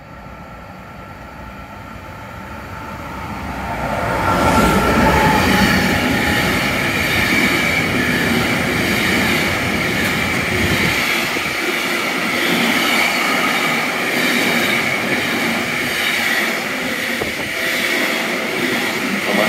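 Intermodal freight train carrying truck trailers approaching and then passing close by at speed. The rumble swells over the first four seconds into a loud, steady rush of wagons, with a high ringing tone from the wheels over it.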